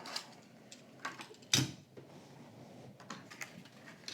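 Plastic blister packaging of a carded die-cast toy car being handled, giving a few light clicks and taps, with one sharper knock about one and a half seconds in.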